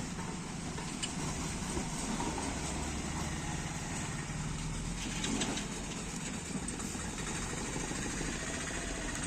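An engine idling steadily, with an even, rapid low pulse.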